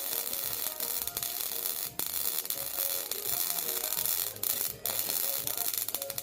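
Electric arc welding: a steady, dense crackle of the arc, broken briefly about two seconds in and again near the five-second mark as the arc is stopped and struck again.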